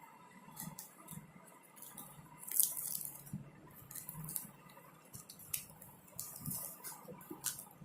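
Knife slitting the seal on a cardboard phone box: short, scratchy rasps and clicks, irregular, with a louder cluster about two and a half seconds in and another near the end.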